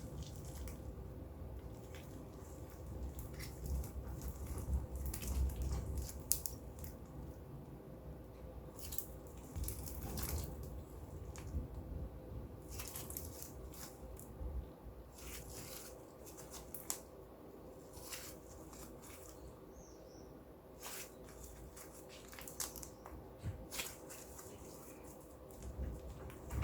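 Clear slime being kneaded and stretched by hand as eyeshadow is mixed in, with irregular small sticky pops and clicks.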